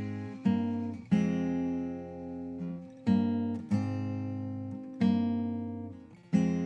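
Background music of an acoustic guitar strumming chords, each chord left to ring and fade before the next strum.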